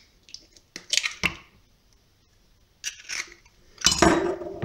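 A hen's egg being cracked on the rim of a plastic mixing bowl and broken open into the milk: short cracks and taps about a second in and again about three seconds in, then a louder knock near the end.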